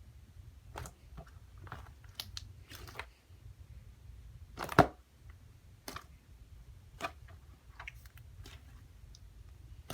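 Butter slime being squished and pressed by hand, giving scattered short pops and clicks, the loudest about five seconds in.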